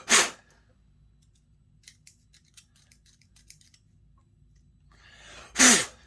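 Two short hissing blasts about five and a half seconds apart, each lasting a fraction of a second, with faint small clicks between them.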